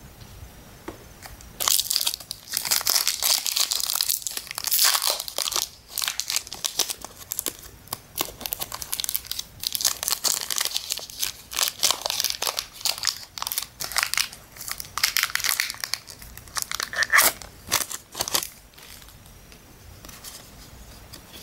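Foil booster pack wrapper crinkling and tearing as it is opened by hand: a long run of sharp crackles that starts about two seconds in and stops a few seconds before the end.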